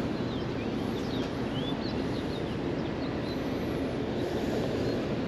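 Steady outdoor background rush with a few short bird chirps in the first two seconds.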